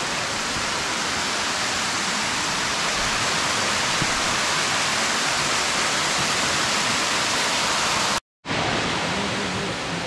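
Mary Vine Creek waterfall: a steady, even hiss of falling water, its flow low after little rain. The sound cuts out for a moment near the end, then resumes.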